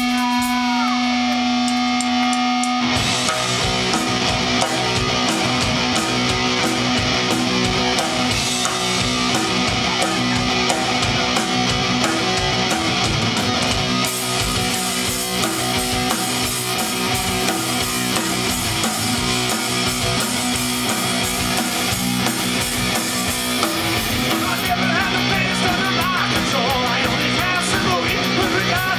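Live punk rock band playing loud and distorted. An electric guitar holds one sustained note, then about three seconds in the drums, bass and guitars crash in together and play on as an instrumental.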